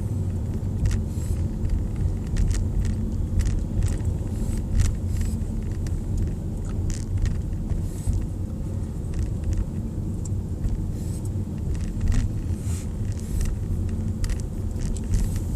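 Car driving slowly, heard from inside the cabin: a steady low rumble with scattered light clicks and rattles.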